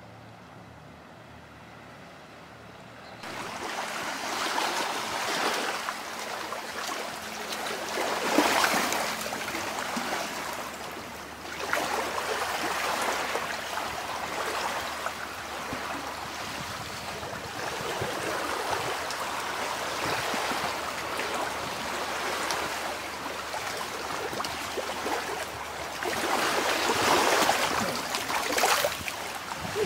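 Small waves washing in among shoreline rocks and trickling back out, a continuous rushing wash that begins about three seconds in and surges louder a few times.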